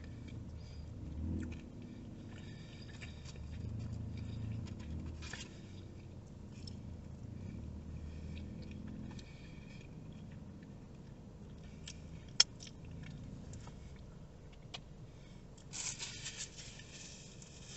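Quiet chewing and lip-smacking of a man eating a wet, saucy chicken sandwich, with scattered faint mouth clicks and one sharp click about twelve seconds in.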